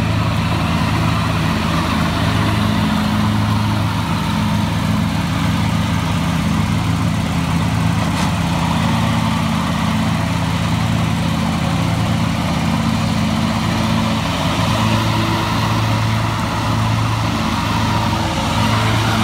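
Scag Tiger Cub zero-turn mower with a 61-inch deck running steadily under load while mowing grass.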